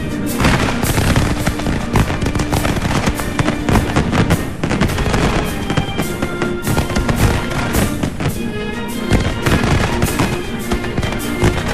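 A fireworks display going off in a dense, unbroken run of bangs and crackles, several a second, with music playing under it.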